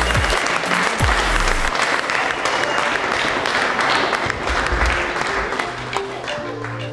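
Audience clapping over background music; the clapping thins out near the end, leaving the music.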